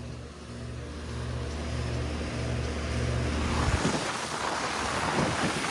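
Lennox central air conditioner's outdoor condensing unit running: a steady low hum, then about three and a half seconds in the even rush of its condenser fan's air, growing louder toward the end.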